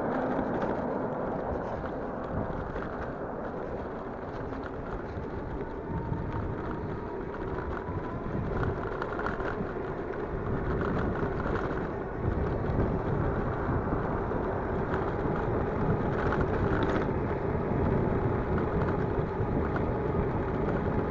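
Electric bicycle riding along an asphalt road: wind buffeting the microphone and tyre noise, with a faint steady whine.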